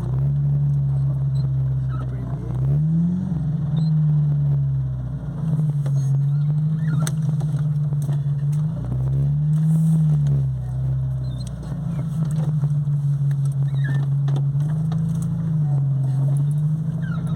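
Chevrolet Corsa's engine running while the car is driven, its note rising and falling several times, climbing about two and a half seconds in and again about nine seconds in, then settling back.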